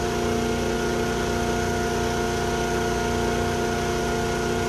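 A machine hum that holds a constant speed, with several fixed tones and no change in pitch or level.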